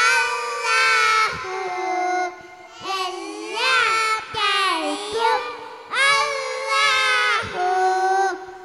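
A group of young kindergarten children singing together into handheld microphones, in sung phrases broken by two short pauses.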